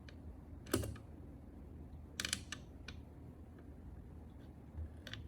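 A few sharp clicks from parts of an Ilco 017 key duplicator being worked by hand: one about a second in, a quick cluster around two seconds, and another near the end, over a faint low hum.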